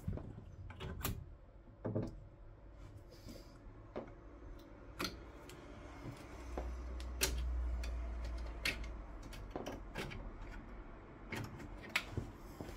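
Scattered clicks and knocks of 3D-printed plastic parts and metal hardware being handled, as a MissChanger tool-changer dock and tool head are unclipped and lifted off a Voron 3D printer, with a low rumble for a couple of seconds in the middle.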